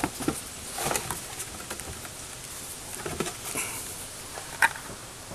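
Handling noise: scattered light taps, clicks and rustles as the cardboard toy box and the camera are moved, with one sharp click about four and a half seconds in.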